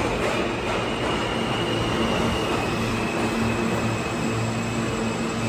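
New York City Subway F train slowing to a stop at an underground platform, the rolling noise of its wheels on the track settling into a steady low hum from the standing cars about two seconds in.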